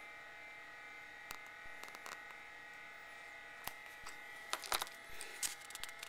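IBM PS/2 Model 80 computer running: a steady, several-toned whine from its fan and hard drive, with a few light clicks and rustles in the second half.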